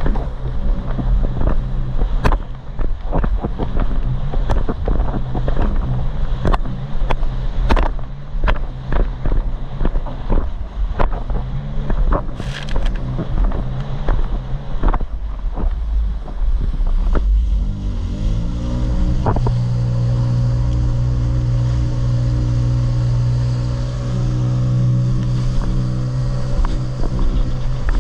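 Jet ski engine running at speed, with a string of sharp knocks and splashes as the hull slaps across waves. About two-thirds of the way in the engine pitch rises and then holds a steady, smoother note.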